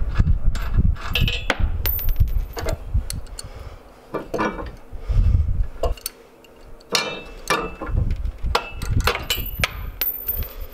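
Wrenches and other hand tools clinking and knocking against the steel tire-carrier linkage and bolts, a string of sharp metallic clicks and clanks. Wind rumbles on the microphone in stretches.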